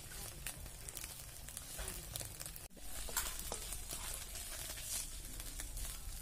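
Napham (fermented fish paste) frying in oil in an iron wok over a wood fire: a steady sizzle with small crackles. The sound cuts out for an instant just under halfway through.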